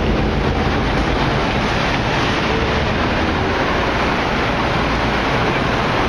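Steady city street noise, mostly passing road traffic, heard as an even roar without distinct events.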